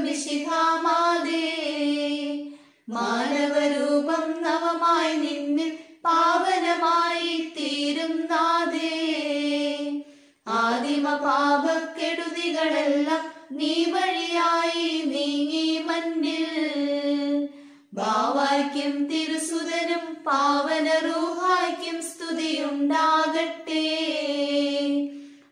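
Singing of a Malayalam Nazrani (Syro-Malabar) liturgical prayer hymn, a chant-like melody sung without instruments, line by line, with a short silent breath between phrases several times.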